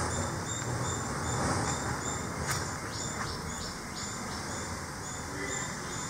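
Cricket-like insects chirping in a steady pulse, about two to three pulses a second, with a few short high chirps about three seconds in, over a low steady background noise.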